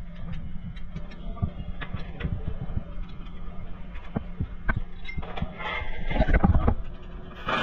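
Irregular metal clicks and clinks as a lug nut and tools are worked on a new wheel stud in the wheel hub, over a steady low hum, with somewhat louder knocks near the end.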